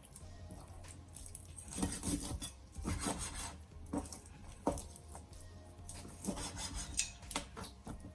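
Knife cutting and scraping through raw chicken pieces: irregular rasping strokes with a few sharp knocks.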